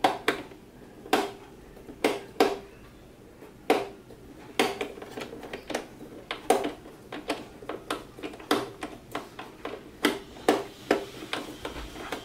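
Irregular hard-plastic clicks and taps, about one or two a second, as the opened underside and battery compartment of a toy RC fire truck are handled.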